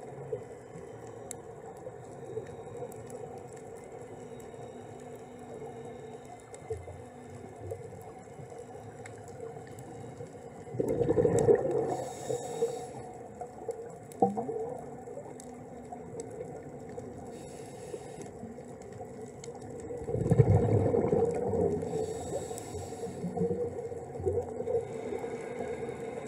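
Underwater ambience at a reef: a steady low hum with faint scattered clicks. Twice, about nine seconds apart, comes the rumbling gurgle of a scuba diver's exhaled regulator bubbles, with a short hiss of breath through the regulator.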